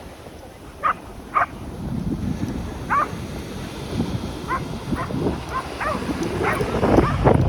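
A dog barking: two sharp barks about a second in, another near three seconds, then a quicker run of short barks through the second half.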